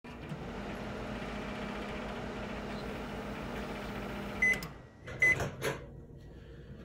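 Microwave oven running with a steady hum that stops about four and a half seconds in, followed by its beeps and a clack as the door is popped open.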